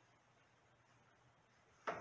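Near silence, then near the end a single sharp snap from a metal hand tool closing on the fire-detector wiring, with a few smaller clicks after it.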